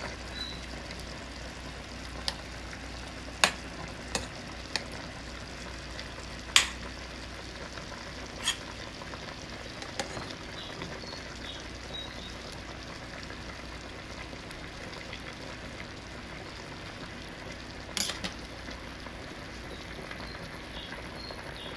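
Fatty pork bubbling in a dark sauce in a stainless steel saucepan, a steady hiss, while a metal spoon stirs it. The spoon clinks sharply against the pot several times, most of them in the first half and once more near the end.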